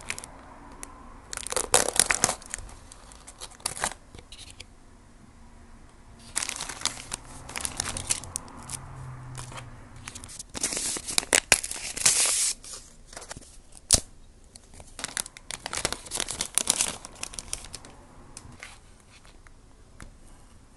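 A bento box being unwrapped: its clear plastic film wrap crinkling and tearing in several bouts as it is pulled off, with one sharp tap about two-thirds of the way through.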